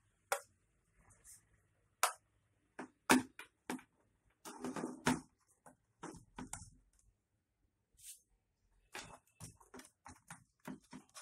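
Irregular plastic clicks and knocks as a Goodyear SSD117A portable tyre inflator is handled and pressed against a tabletop, with a short stretch of rustling about halfway through.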